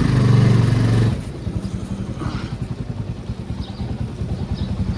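Motorcycle engine revved briefly, dropping back about a second in to a steady idle.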